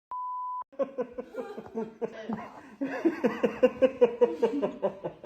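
A short steady beep at the start, then a person laughing hard in quick, regular pulses, about four or five a second, louder from about three seconds in.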